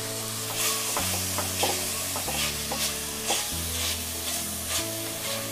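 Chopped onions with garlic, ginger and green chillies sizzling in hot oil in a wok, stirred with a silicone spatula that scrapes across the pan now and then. Soft background music with held chords runs underneath.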